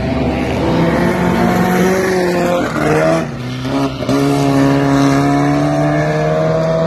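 Four-cylinder front-wheel-drive dirt track race car engine running hard, revs climbing. The revs drop off sharply about three seconds in. A second later they pick up again and climb to hold high.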